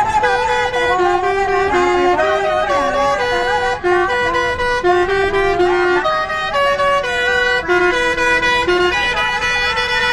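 Bus 'telolet' melody horn playing a tune: held horn notes stepping up and down in pitch every half second or so, with no break.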